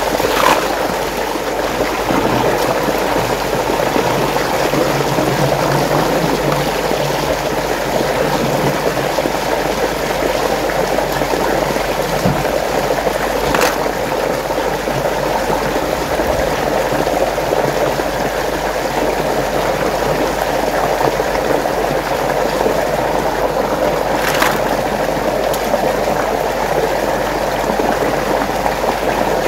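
Steady rush of swirling, flowing water, with three brief sharp clicks spread through it.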